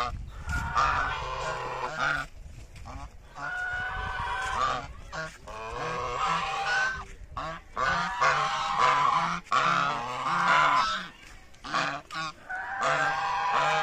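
Domestic geese honking over and over in runs of loud calls, several birds overlapping, with short pauses between the runs.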